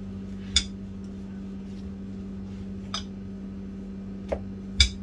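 Kitchen handling noises: four sharp clicks and clinks, the loudest about half a second in and near the end, over a steady low electrical hum.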